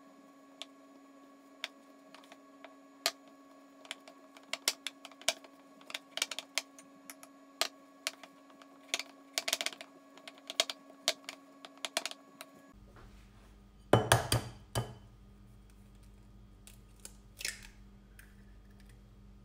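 Silicone spatula stirring flour and milk into a dough in a glass mixing bowl, with irregular clicks and taps against the glass. About two thirds of the way through, a brief cluster of louder knocks follows as an egg is cracked into the bowl.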